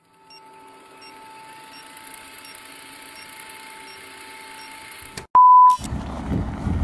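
Old-film countdown leader sound effect: a faint hiss and hum with soft ticks about every 0.7 seconds, then one loud half-second beep about five seconds in. Outdoor background noise takes over in the last second.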